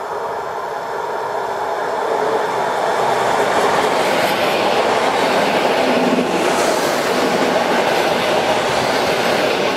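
An EN57 electric multiple unit running past close by along the platform, with the noise of its wheels on the rails. It grows louder over the first few seconds as the cars draw level and then holds steady.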